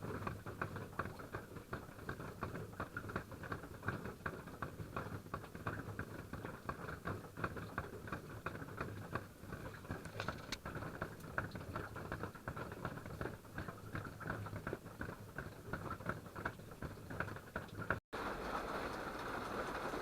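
Water drops pattering irregularly on a tent, a dense run of small taps. Near the end it cuts to a steadier rush of falling water.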